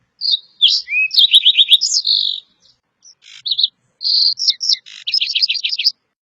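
Sparrow chirping: bursts of short, high chirps and quick falling notes, with a fast run of chirps near the end before it stops.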